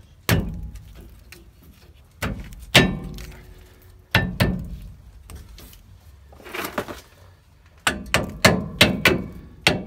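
A rear brake caliper clunking against its metal bracket as it is worked back over new pads, with several separate knocks. Near the end comes a quick run of knocks, about two or three a second, from a mallet tapping the caliper down to seat it.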